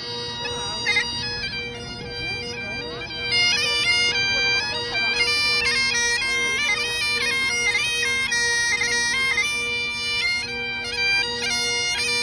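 Bagpipes playing a melody: the chanter steps between notes over a steady, unbroken drone.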